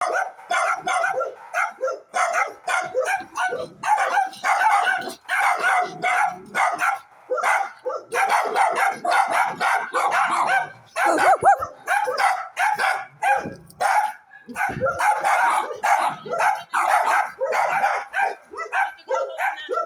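Dogs barking over and over, a dense run of short barks, several a second at times, with only brief pauses.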